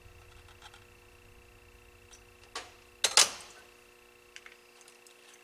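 Soldering iron set down after soldering a joint: a light click about two and a half seconds in, then a louder sharp clatter a moment later that rings briefly.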